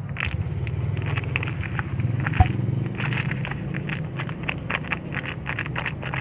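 Squishy toy being handled close to a phone microphone: irregular crackly rustling and scraping over a steady low hum, with one sharp bump about two and a half seconds in.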